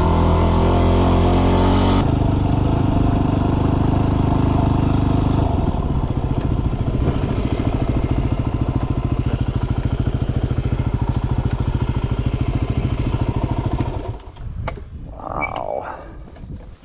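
Yamaha WR250R dual-sport motorcycle's single-cylinder four-stroke engine running, dropping to a lower steady note about six seconds in, then shut off about fourteen seconds in, followed by a few faint clicks and rustles.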